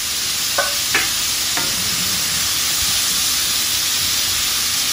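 Chopped broccoli, bell peppers and onion sizzling steadily in a hot skillet, with a few light clicks in the first couple of seconds and a wooden spatula stirring them near the end.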